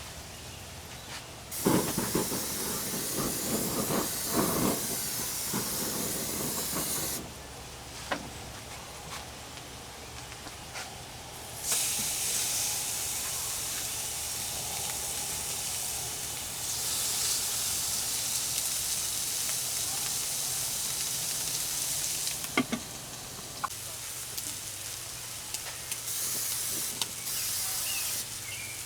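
Pork sirloin chops sizzling as they fry, a steady hiss. It comes in stretches that start and stop abruptly, with a few sharp clicks.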